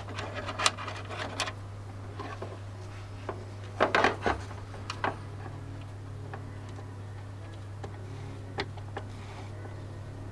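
Scattered clicks, knocks and clatters of small tools and hard plastic being handled during a workshop repair, loudest about 4 seconds in, over a steady low hum.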